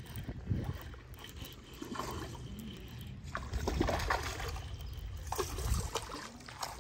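Water splashing and trickling at the surface as a small hooked fish, a bass, is reeled in on a baitcasting reel.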